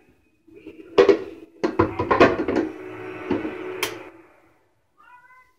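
A spatula knocking and scraping against a blender jar and glass bowl as thick dressing is scraped out. The sharp knocks come in a quick irregular run between about one and four seconds in.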